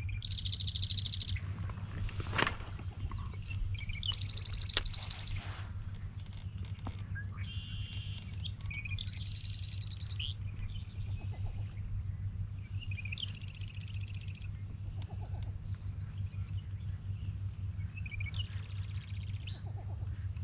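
A songbird singing short, rapid trilled phrases about a second long, repeated every few seconds, over a steady low rumble and a faint, thin, steady high tone.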